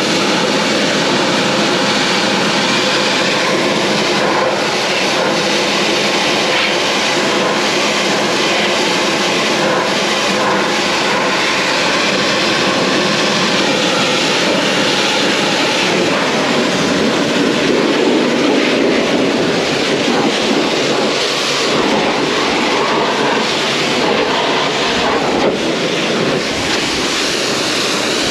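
John Deere 7810 tractor's six-cylinder diesel engine running steadily.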